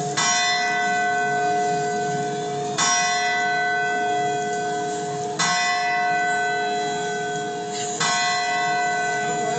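Church bell striking the New Year's midnight chimes from a live television broadcast, the strokes that mark the twelve grapes. There are four strokes, about two and a half seconds apart, each ringing on until the next.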